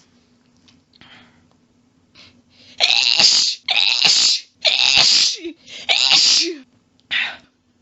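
A person sneezing four times in rapid succession, a quick quadruple about a couple of seconds in, each sneeze lasting under a second. A shorter, fainter burst follows near the end.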